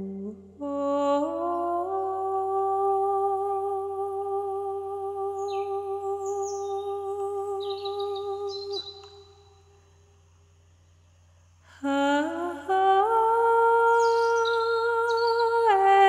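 Wordless humming of slow, long-held notes that step upward in pitch, breaking off for about three seconds just past the middle before resuming; short, high bird chirps sound above it.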